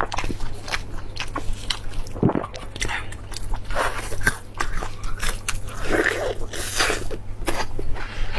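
A person biting and chewing food close to the microphone: irregular short clicks and mouth sounds, over a steady low hum.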